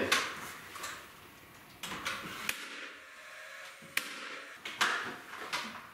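Cordless finish nailer firing nails into crown molding at a cope joint: several sharp shots, a second or so apart, the loudest about five seconds in.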